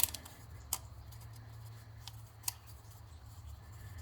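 Light handling clicks and taps as a new rubber gasket is worked onto the plastic oil filter housing cap: three short sharp clicks, one right at the start, one a little under a second in and one about two and a half seconds in, over a low steady hum.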